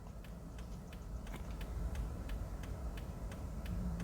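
Faint, regular ticking, about four ticks a second, over a low steady hum.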